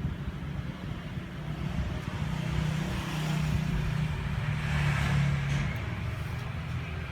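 A motor vehicle running, with a steady low rumble; its sound swells about three seconds in, is loudest around five seconds, then eases off.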